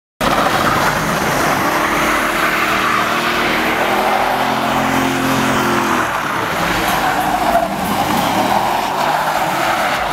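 Car doing a burnout: rear tyres spinning and squealing on the pavement while the engine runs hard. The engine's tone holds steady through the first half before it is lost under the tyre noise.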